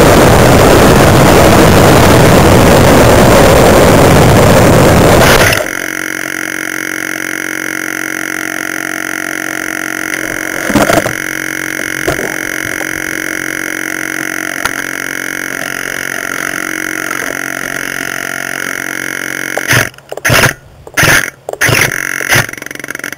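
Onboard a twin-motor electric model plane: loud wind rush and motor noise as it flies low, cutting off suddenly about five and a half seconds in as it comes down in the grass. After that a much quieter steady hum with a few fixed tones, one knock, and near the end a run of short loud bumps and rustles.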